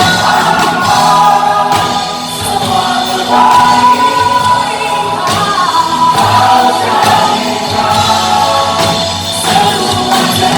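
A choir singing a gospel worship song with instrumental backing, with long held notes.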